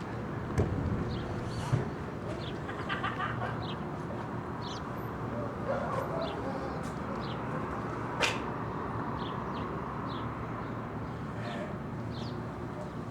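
Birds chirping in short, high calls scattered through, over a steady low hum and background noise, with a few sharp clicks.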